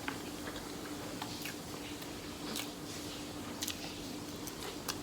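Someone chewing a mouthful of sushi up close, with scattered soft clicks and mouth sounds over a steady faint hum.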